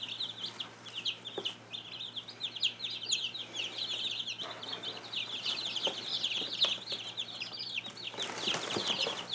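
A flock of young chicks peeping continuously: many short, high, falling chirps overlapping one another. A brief scuffling noise comes near the end.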